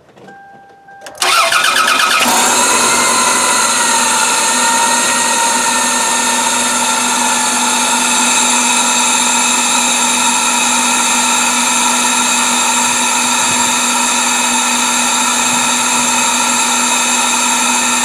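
A 1997 Toyota Camry's 2.2-litre four-cylinder engine is cranked by the starter for about a second, catches, and settles into a steady idle, heard close to the propped-open air box.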